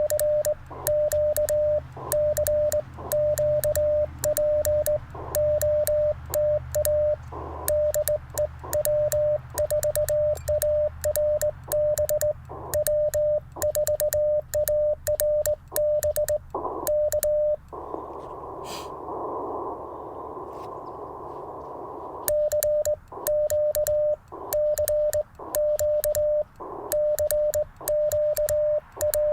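Hand-sent Morse code: the Icom IC-705's CW sidetone, one steady tone keyed in dits and dahs from a sideswiper (cootie) key, with the key's contacts clicking on each element. A little past halfway the sending pauses for about four seconds of receiver hiss, then resumes.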